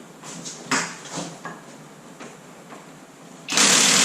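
A few light clicks and knocks, then about three and a half seconds in an impact wrench starts hammering, loud and steady, on the crankshaft bolt of a 6.0 L LS V8. The bolt is held with Loctite and has just been heated to break it loose.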